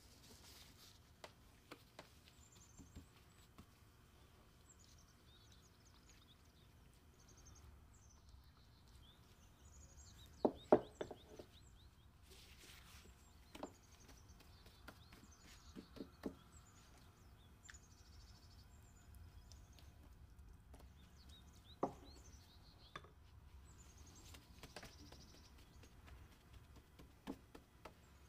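Faint birds chirping in the background, with a few soft knocks and taps as dough is folded by hand on a wooden board. The loudest is a quick cluster of knocks about ten seconds in.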